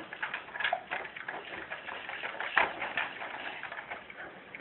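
A baby bouncing in an activity jumper: irregular clicks and rattles from the seat frame and its attached toys, with one sharper knock about two and a half seconds in.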